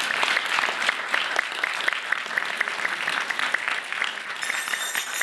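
Audience applauding: many hands clapping steadily, with one clapper close by standing out at about five claps a second.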